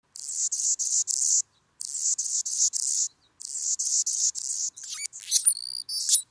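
Insects chirping: rapid, high-pitched pulsed chirps in bouts of about a second, separated by short gaps. A few short whistled notes around five to six seconds in.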